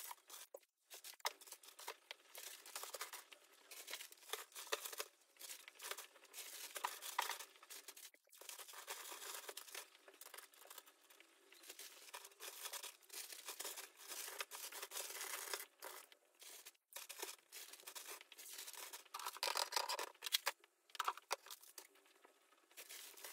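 Crinkly material being handled close by: irregular rustling and crinkling that comes in bursts with brief pauses, louder for a couple of seconds near the end.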